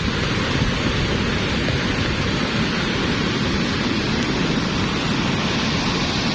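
Lahar, a volcanic mudflow, rushing down the river channel: a steady, unbroken roar of churning muddy water.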